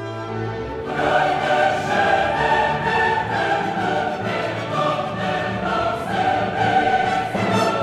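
Background music: a choir singing with an orchestra, swelling louder about a second in.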